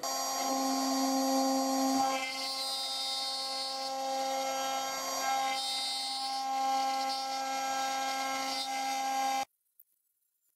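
CNC router spindle whining steadily while a small end mill cuts a hexagonal pocket into a metal part, with cutting noise under the whine. It cuts off suddenly near the end.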